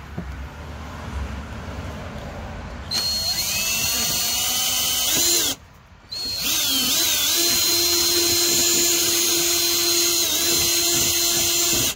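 Cordless drill boring a hole through a plastic bumper cover. It runs in two spells: one starting about three seconds in, then a short stop, then a longer steady run with a constant whine.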